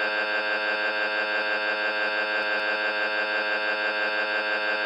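A steady, loud electronic buzz held on one fixed pitch, the sound of a tiny snippet of audio looped so fast that it becomes a single droning tone. Two faint clicks come near the middle.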